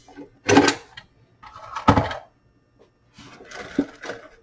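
Handling noise from a wood-cased 8-track player and its tape cartridge as the cartridge is pulled out and set down on a wooden bench: two solid clunks about a second apart, then softer scraping and knocks.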